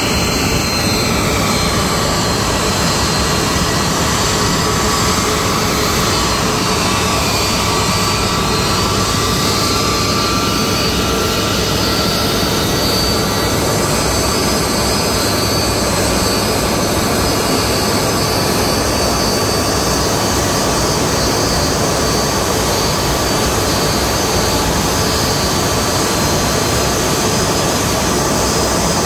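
Airbus A330-200's turbofan engines running at idle as the airliner taxis slowly onto its stand: a steady jet whine over a rumble. The fan tones slide down and then back up in pitch during the first ten seconds or so.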